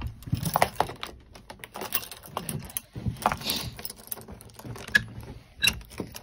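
A bunch of keys jangling and clicking against a door's brass cylinder lock as a key is found and fitted into it, in irregular short rattles.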